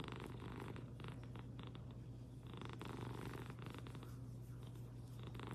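American Shorthair cat purring steadily.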